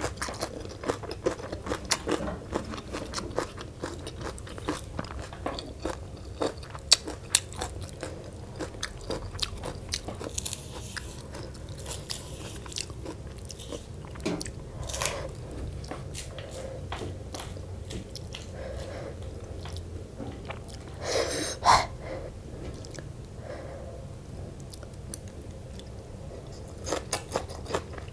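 A person chewing and crunching spicy Lao noodle salad with crisp raw vegetables: a steady run of small bites, crunches and wet mouth clicks, with a few brief louder hissy sounds in between.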